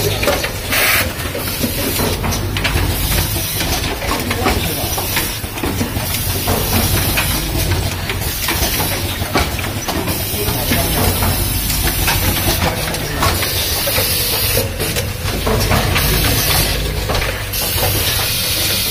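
Automatic rapid test kit assembly machine running: a steady mechanical hum with dense clicking, broken every few seconds by short hisses.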